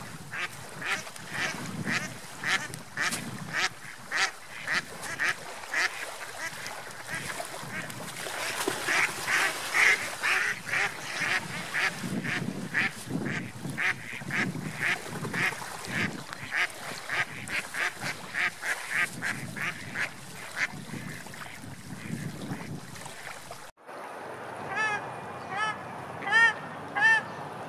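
Mallard ducks quacking in a rapid, steady run of short calls, two to four a second, over a low rumble. After a sudden cut near the end, a few separate honks that rise and fall in pitch, from geese.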